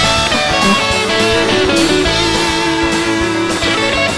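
Rock band playing live: electric guitar over a full drum kit, with regular drum and cymbal hits and a held guitar note through the middle.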